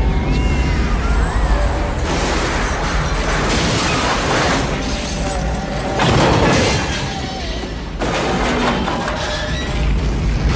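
Film sound effects of a tornado hitting a shelter: a deep, steady wind roar with crashing and shattering debris and sudden loud impacts about two, six and eight seconds in.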